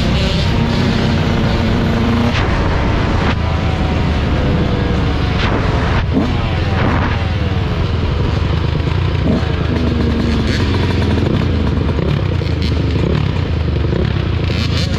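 Two-stroke single-cylinder engine of a 2024 Yamaha YZ125 dirt bike under way, revving up and down through the gears, with several quick rising and falling rev sweeps about midway.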